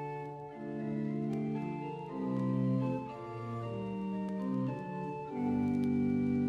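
Background music: slow organ chords, each held for about a second before the next.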